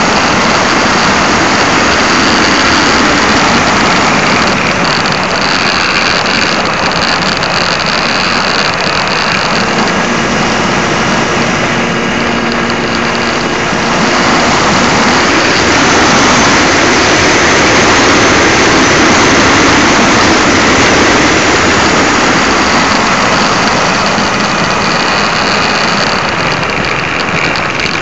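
Wind and propeller noise picked up by a keychain camera riding on a model Extra 300 aerobatic plane in flight. It is a loud, steady rushing, with a faint motor tone showing through for a few seconds near the middle.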